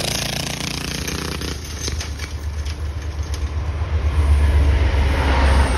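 Go-kart engine running as the kart drives off across gravel, its tone fading after about a second and a half. A heavy low rumble builds and is loudest near the end.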